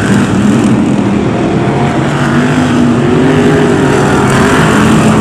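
Several BriSCA F1 stock cars' V8 engines running loud and continuous as the cars race round a shale oval, the pitch rising and falling as the drivers ease off and accelerate through the bends.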